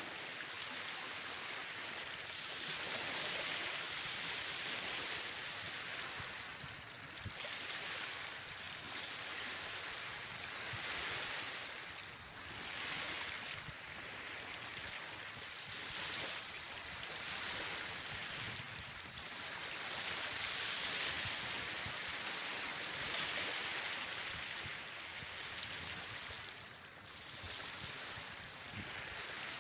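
Surf washing on a beach: a steady rush of waves that swells and eases every few seconds.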